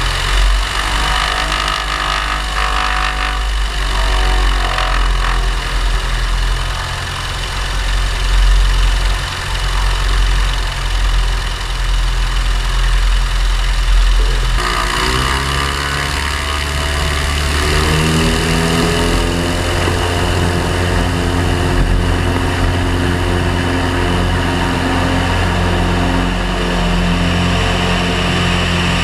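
Light aircraft's piston engine and propeller running at low taxi power. About halfway through the engine is opened up, its note rising over a few seconds, then it runs steadily at full power for the takeoff roll.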